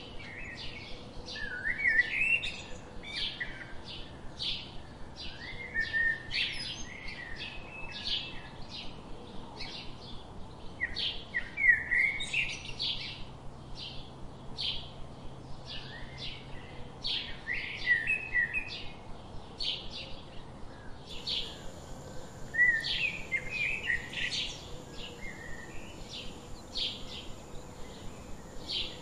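Wild birds singing: short high chirps repeat about twice a second, and another bird breaks in with brief warbling phrases every five or six seconds. A thin, steady high tone joins about three quarters of the way through.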